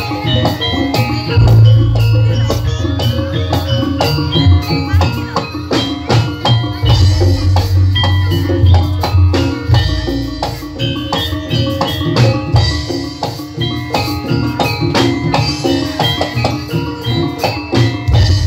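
Loud live jaranan senterewe ensemble music: fast, driving drums over ringing struck metal percussion, with heavy low bass notes coming in and out.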